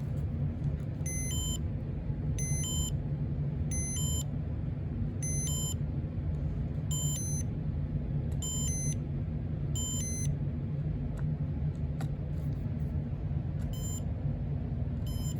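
Electronic beeps from the Casablanca Comfort Touch fan control, coming as quick double beeps about every second and a half. There is a pause of a few seconds near the end before two more pairs. A steady low hum runs underneath.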